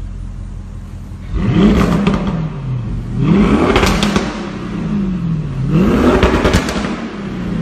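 Audi RS6 Avant's twin-turbo V8 through an Akrapovic exhaust, in economy mode, revved three times from idle. Each rev climbs quickly and falls back slowly, with a rattle of exhaust crackles and pops as it drops.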